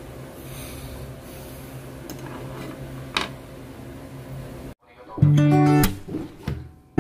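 Steady low background hum with a single click, then a sudden cut, and loud acoustic guitar music starts with plucked notes near the end.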